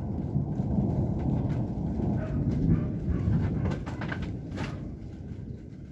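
Thunder rumbling low and slowly dying away, with a few faint short sounds and clicks over it.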